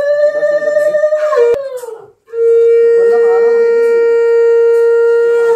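Conch shell (shankha) blown twice to mark the blessing: a first blast that tails off with a falling pitch about a second and a half in, then after a brief gap a long, steady blast of about three seconds.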